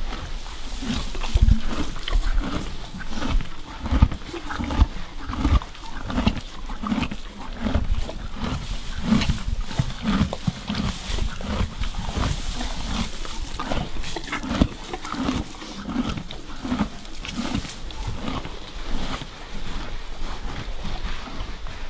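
A horse eating feed while being brushed: brush strokes over its coat mixed with its chewing and breathing, in an irregular run of short strokes about one or two a second.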